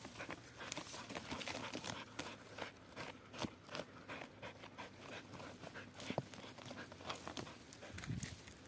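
A hunting dog panting with its head down a tegu lizard's burrow, among irregular rustling and crackling of dry twigs and brush.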